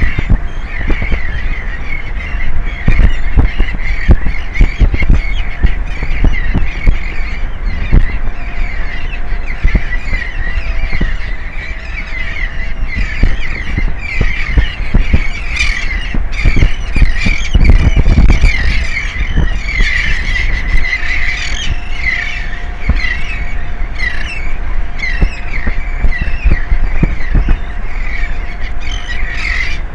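Many seabirds calling at once: a dense run of short, overlapping calls, over wind buffeting the microphone and a faint steady hum.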